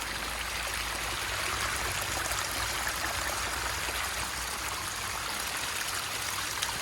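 Rain-swollen stream running over the trail, a steady rush of flowing water fed by the night's heavy rain.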